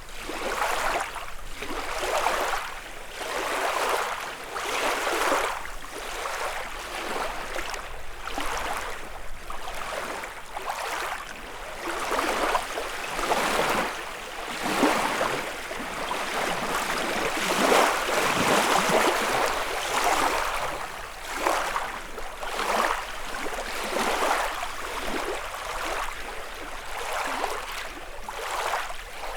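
Small lake waves lapping and washing onto the shore, one after another every second or two.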